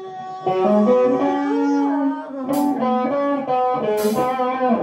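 Live rock band music: an electric guitar playing a lead line of held notes that step up and down, with two short hissy hits about a second and a half apart.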